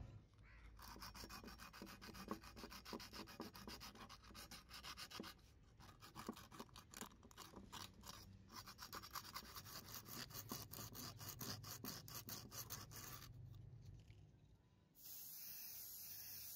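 Sandpaper rubbed by hand over a cast metal juicer part in quick back-and-forth strokes, several a second, with a short break about five seconds in. About a second and a half before the end, an aerosol spray-paint can starts a steady hiss.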